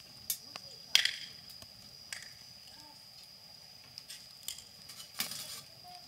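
Wood fire crackling: scattered sharp pops and snaps at irregular intervals, the loudest about a second in. A faint steady high-pitched whine continues underneath.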